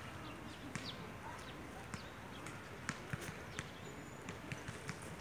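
Outdoor ambience: a steady low background noise with scattered short, irregular clicks and high chirps, and a brief thin high whistle about four seconds in.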